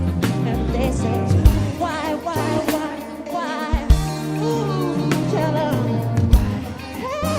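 Pop-soul ballad played by a band, with a bass line, drum hits and wordless sung vocal ad-libs gliding over it.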